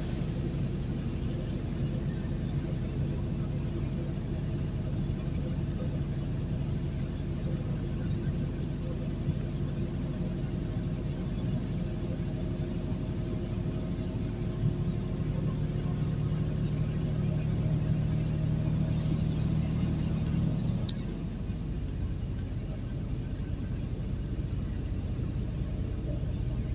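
Truck engine droning steadily inside the cab while it pulls up a grade, over tyre and road noise. About three-quarters of the way through, the drone drops to a lower, quieter note, with a brief click.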